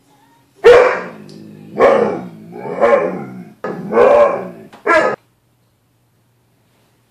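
A dog gives five drawn-out barks, each bending in pitch, in about four and a half seconds. It is barking at its own reflection in a glass door, which it takes for another dog.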